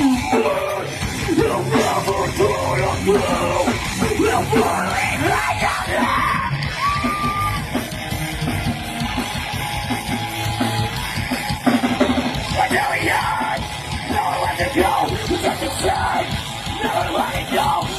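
Loud heavy rock music with yelled vocals.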